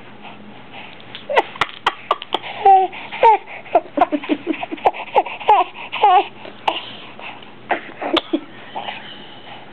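Six-month-old baby babbling: a run of short vocal sounds that bend up and down in pitch through the first two-thirds, mixed with a few sharp clicks, then sparser sounds near the end.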